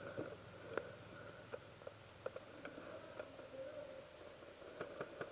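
Faint, scattered sharp ticks over a quiet background, coming quicker near the end: distant shots from the opposing players' guns.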